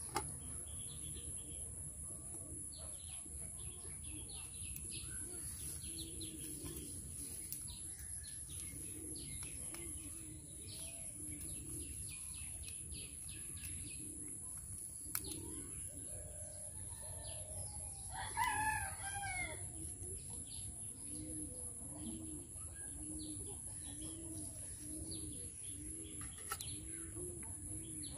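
Small birds chirping throughout, with a rooster crowing once about two-thirds of the way in. A run of low, evenly spaced calls follows near the end.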